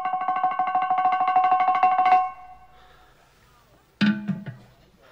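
An Italian song's accompaniment ends on a held note, played as a rapid tremolo on a plucked string instrument. It cuts off about two seconds in. A brief, sudden sound follows about four seconds in.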